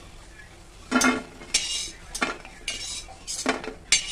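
Metal slotted spoon scraping and clattering against a metal wok and steel plate as fried pakoras are scooped out of the oil and tipped onto the plate. There are about six strokes, a little under a second apart.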